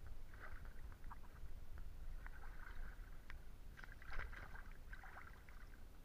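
Shallow stream water gurgling and splashing over stones and leaves in uneven bubbly bursts, over a steady low rumble.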